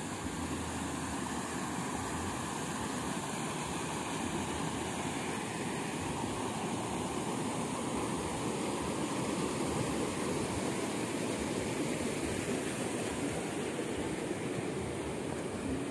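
Steady rush of a rocky stream's flowing water.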